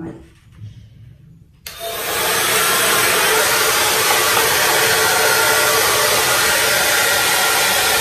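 Remington hair dryer switched on about one and a half seconds in: its fan motor spins up and then blows a steady rush of air, with a faint whine in it, on medium speed and medium heat.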